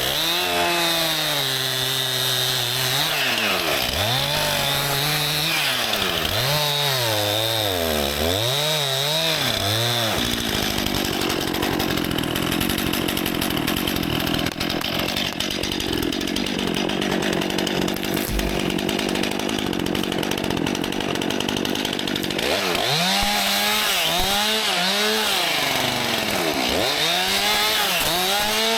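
Stihl MS261 two-stroke chainsaw revving up and down. About ten seconds in it settles into a steady cut through wood under load for some twelve seconds, then goes back to revving up and down near the end.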